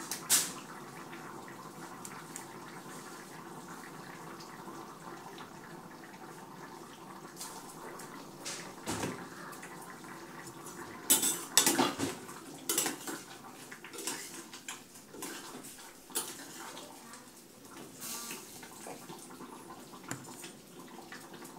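Intermittent clinks and clatters of kitchen dishes and utensils being handled, with a cluster of sharp knocks about eleven to thirteen seconds in, over a faint steady background noise.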